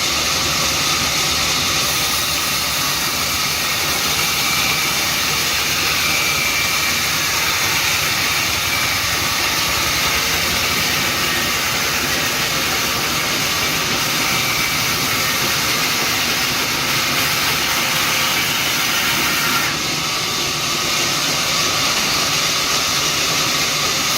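A steady, loud hissing rush of noise with no clear pitch, dipping slightly once about twenty seconds in.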